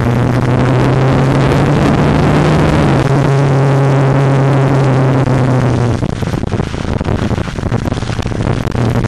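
Motorcycle engine running at a steady road speed, with wind rushing past the helmet or bike camera. The engine note drops slightly about three seconds in. Around six seconds in it falls back under the wind noise as the bike leans through a bend, then returns near the end.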